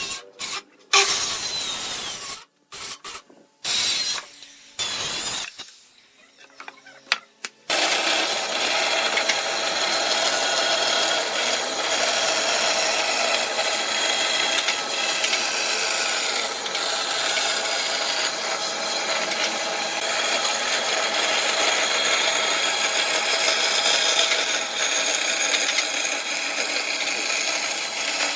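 Short bursts of workshop tool noise broken by abrupt cuts, then a power tool running steadily on wood from about eight seconds in.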